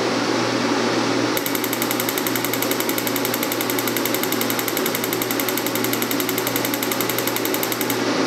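Ford 6.4 L piezo diesel injector ticking in a rapid, even train while the tester repolarizes its piezo stack at 130 volts. It starts about a second and a half in and stops near the end, over a steady hum of shop machinery.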